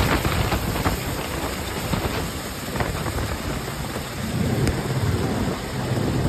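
AgustaWestland AW101 Merlin Mk4 helicopter lifting off and climbing away: a steady, heavy rush of rotor and turbine noise with a deep rumble. The rotor downwash is buffeting the microphone.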